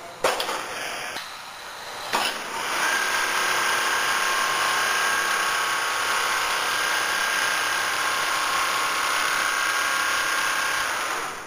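Double-needle industrial quilting machine running: after two sharp clicks, a steady mechanical whir with a high motor whine starts about three seconds in and dies away near the end.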